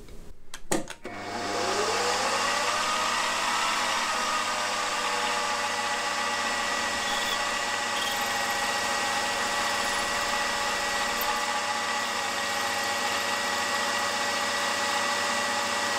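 Milling machine spindle starting up about a second in, its whine rising to speed, then running steadily while a 6 mm stub drill bores into a metal main bearing block. The sound stops just after the end.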